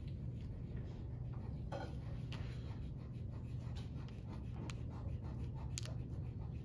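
Pencil scratching on paper in short strokes as lines are drawn, over a steady low hum.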